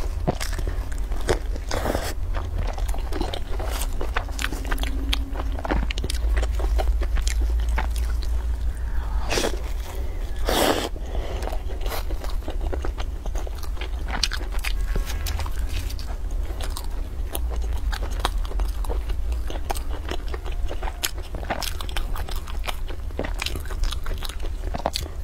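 Close-miked biting and chewing of a sugar-coated twisted doughnut dipped in cream, with many crisp crunches and crackles, over a steady low hum.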